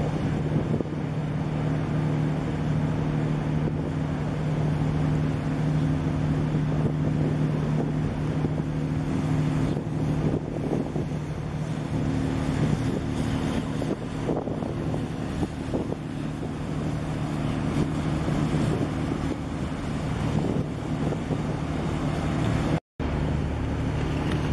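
Steady low drone of ship engines, mixed with wind buffeting the microphone. The sound drops out for a moment near the end.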